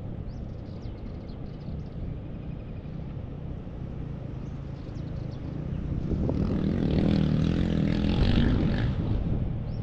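A low, steady engine drone that grows louder about six seconds in.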